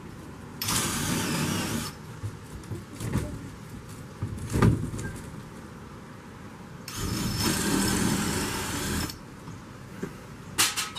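Handheld electric drill-driver running in two bursts, about 1.3 s then about 2 s, as it drives fixings through the polycarbonate roofing into the timber frame, with a few short knocks between.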